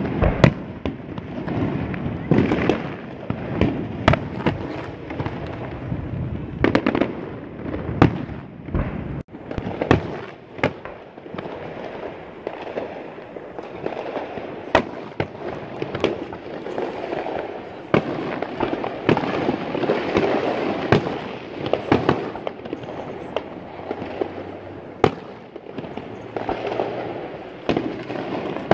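Aerial fireworks shells bursting overhead: a long, uneven run of sharp bangs, some close together, over a constant background of crowd noise.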